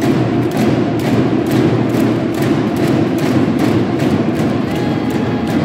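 Basketball arena crowd noise with a steady thumping beat running through it, about three beats a second.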